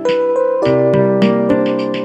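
Background music: a piano or electric-piano track with a steady beat, notes changing about every half second.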